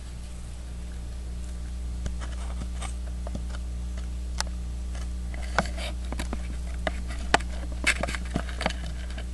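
Scattered light taps and clicks from hands handling a small mirror-and-artboard kaleidoscope assembly held up close, coming more often in the second half, over a steady low hum.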